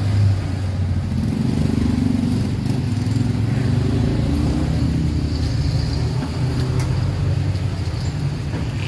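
Steady low rumble of a motor vehicle engine running, with no sudden changes.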